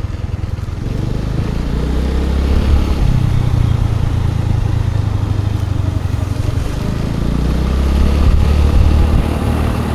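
Motor scooter engine running while riding, its note swelling as the throttle opens, once about a second in and again towards the end.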